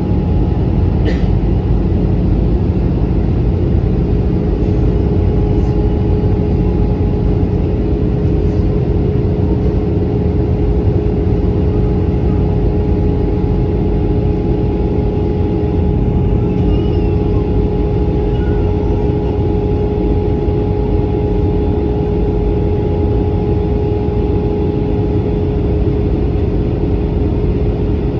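Airbus A320 cabin noise in cruise flight: a steady, loud engine and airflow noise with a constant hum running through it.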